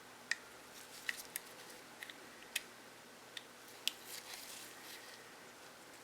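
Light, sharp clicks and taps of small gun parts, about ten scattered over four seconds, then a little rustling of handling: a pin being worked into a Glock 42 frame with a punch while the slide catch is held down.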